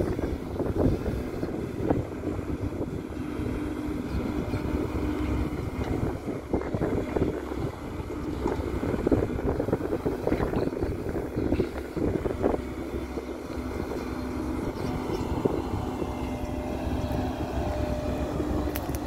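Hidromek crawler excavators' diesel engines running steadily under working load as they dig and swing, a continuous hum with scattered brief knocks.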